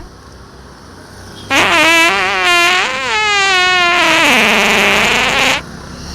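Loud prank fart sound effects: several drawn-out, wavering farts run together from about a second and a half in, the last one long and hissy, cutting off abruptly near the end.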